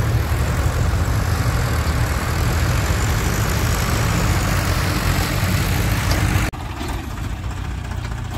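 Several diesel farm tractor engines running together, a steady, loud low engine drone. About six and a half seconds in it drops abruptly to a quieter, steady idle of tractors standing side by side.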